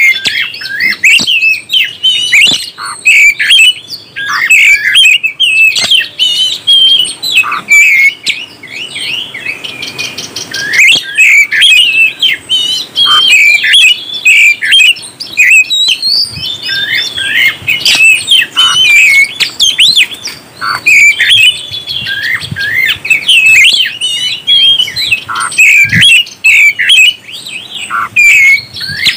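Oriental magpie-robin singing a fast, varied run of whistled and chattering phrases, with hardly a pause.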